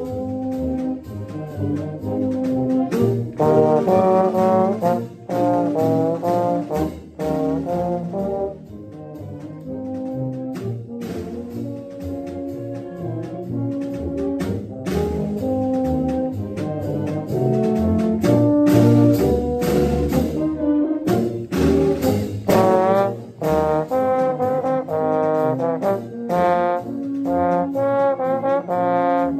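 Band music led by brass, with trombones among the parts: several instruments play changing notes and chords together, with no break.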